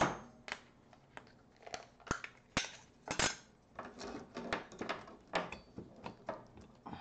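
Irregular sharp clicks and small knocks, about a dozen over several seconds, from handling the battery box of a fairy-light chain while trying to switch it on.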